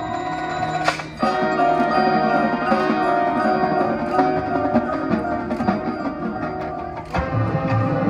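Marching band playing its field show: held wind chords with mallet percussion from the front ensemble. A sharp accent comes about a second in, after which the full band plays louder, and near the end the music shifts to strong low pulses.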